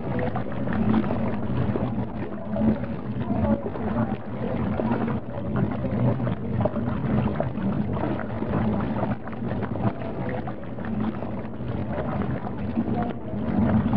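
Turbulent water churning and splashing, with a steady low drone underneath.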